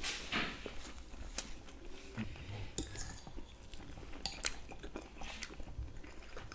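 A fork and spoon clinking and scraping against a plate in scattered sharp clicks as food is cut and scooped, with soft chewing between.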